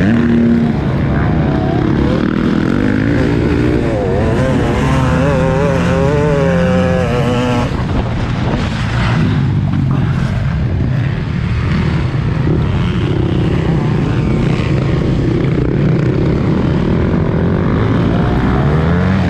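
Several dirt-bike engines running hard at once, their pitch rising and falling as the riders work the throttle, loud and without let-up.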